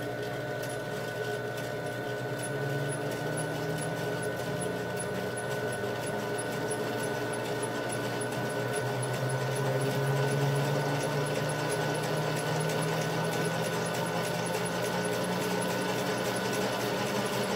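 Glass lap wheel running with a plywood turntable disc spinning loosely on its plate: a steady motor hum that grows louder over the first ten seconds or so, with a faint, even ticking. The disc is not perfectly balanced, giving a little vibration and wobble.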